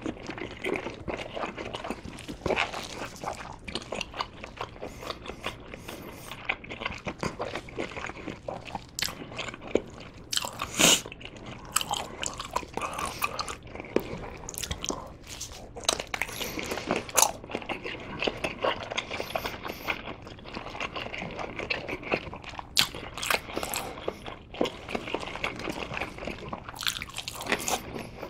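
Biting into and chewing Korean blood sausage (sundae) close to the microphone: a steady stream of irregular wet mouth clicks, with a few louder bites along the way.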